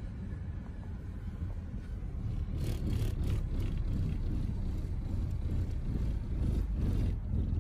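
A car driving: steady low road and engine rumble, with a few brief clicks about three seconds in and again near the end.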